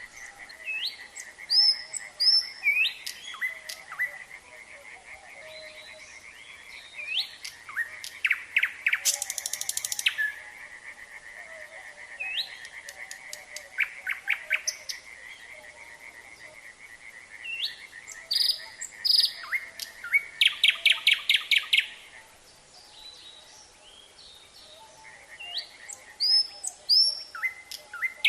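A nightingale singing in separate phrases of rising whistles and fast runs of repeated notes, the loudest runs about a third of the way in and again two-thirds in. Under it runs a steady trilling chorus of frogs.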